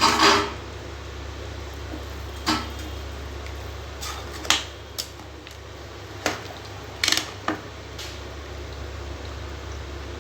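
Metal utensil clinking and knocking against a pressure cooker pot as soaked rice is added and stirred into boiling water: about seven sharp clinks spread through, the loudest at the start, over a steady low hum.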